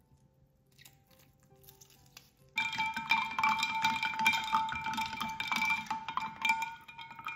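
Ice cubes clinking and rattling against the sides of a glass pitcher as it is stirred with a wooden spoon, starting about two and a half seconds in, with the glass ringing under the many quick strikes. Before that, only faint soft music.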